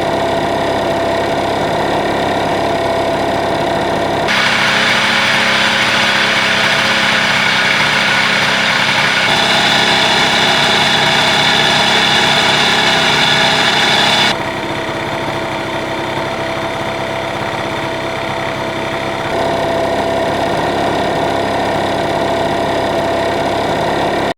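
Honda Dio 50cc two-stroke scooter engines idling, recorded close to the crankcase, in clips that switch abruptly about every five seconds. The stretch from about four to fourteen seconds in is louder, with more hiss.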